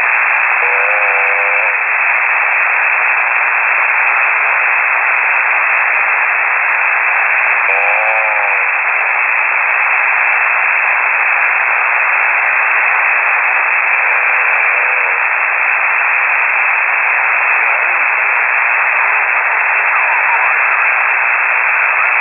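Shortwave single-sideband radio through a KiwiSDR receiver: steady static hiss filling the narrow voice band. A faint pitched snore from a radio amateur asleep on the air comes through three times, about every six or seven seconds, each rising then falling in pitch over about a second.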